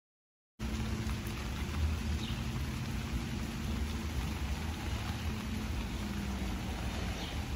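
Steady rain falling, starting abruptly about half a second in, with a continuous low rumble underneath.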